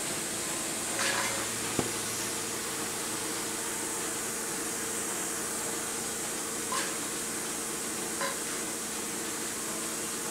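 Steady hiss with a low mechanical hum and a few light clicks and taps.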